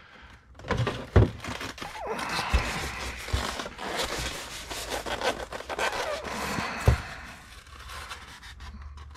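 Styrofoam packing and a cardboard box being handled: the foam block slid out of the box and its halves pulled apart, rubbing and scraping, with a few light knocks, the sharpest about seven seconds in.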